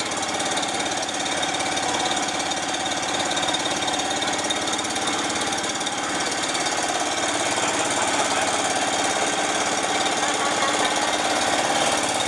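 Engine running steadily with a fast, even knocking rattle.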